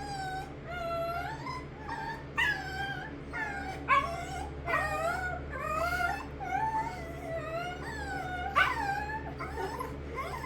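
Dog whining in a long series of high, wavering whines that slide up and down in pitch, one after another.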